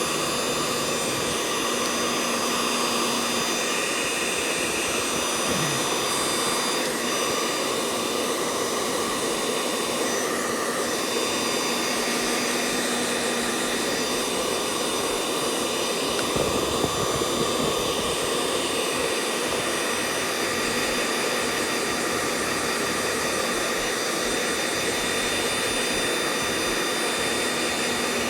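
A small electric motor tool or blower running steadily with a continuous whir and rush, holding an even pitch and level.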